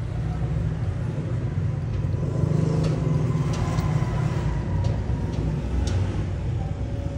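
Steady low engine rumble, with a few faint clicks over it.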